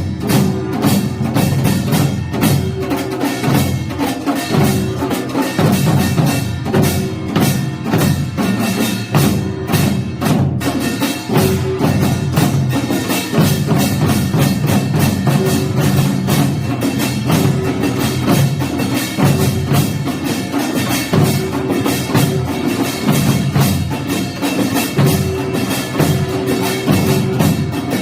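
Samul nori, Korean traditional percussion, playing: a dense, fast, continuous stream of drum and metal gong strikes.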